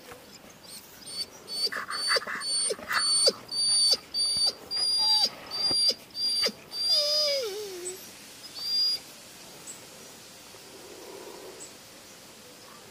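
Dog whining: a run of short, high-pitched whines about twice a second, ending in a longer whine that falls in pitch.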